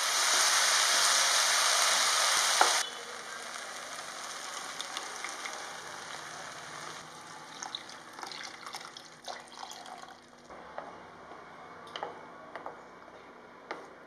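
Shallots, tomatoes and dry chillies frying in oil in a pan, sizzling loudly; about three seconds in, the sizzle drops away suddenly as cooked toor dal is poured over them, leaving a quieter simmer with scattered soft clicks and pops as the spatula stirs.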